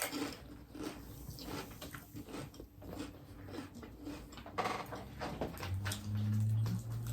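Close-up eating sounds: biting into and chewing a toasted grinder sandwich, with wet mouth clicks and smacks and some crunch. A steady low hum begins about six seconds in.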